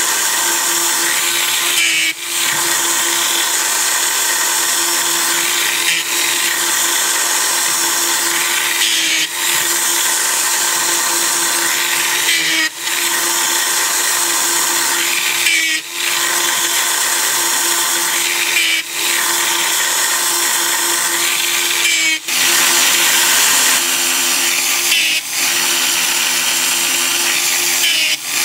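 Granberg electric chain grinder running steadily, its stone grinding the depth gauges (rakers) of a chainsaw chain down to a lower height. The grinding noise drops briefly about every three seconds.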